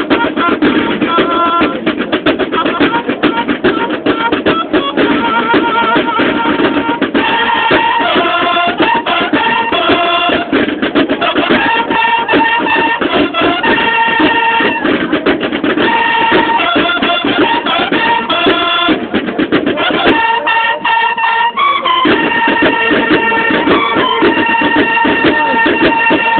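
Banda de guerra, bugles and marching drums, playing: held bugle notes over rapid, continuous snare drumming. The low drumming drops out for a couple of seconds near the end, leaving bugles and snares.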